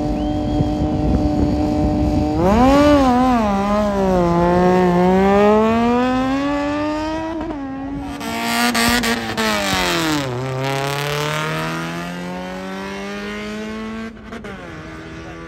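Superbike engine held at steady high revs, then revved up and down hard before pulling away. Its pitch climbs steadily while the sound fades near the end.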